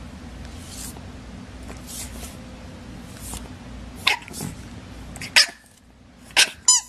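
A pet animal making short breathy sounds about once a second, then several louder sharp vocal sounds, ending with a short pitched call near the end.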